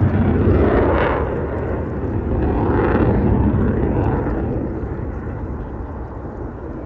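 Jet aircraft passing at an air show, a loud rumbling engine roar that swells twice and then fades away.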